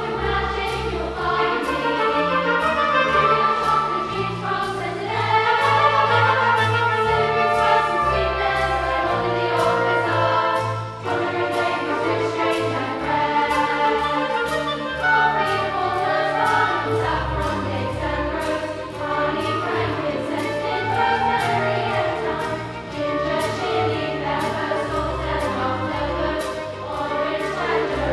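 Children's choir singing with a live orchestra accompanying, the music running on without a break.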